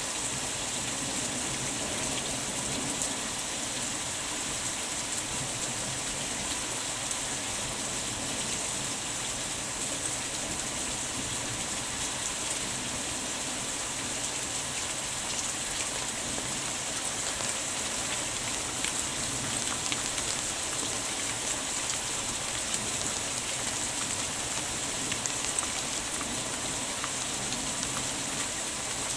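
Heavy rain falling steadily on a yard of grass, shrubs and roofs: an even hiss of pouring rain with small drop ticks, not letting up.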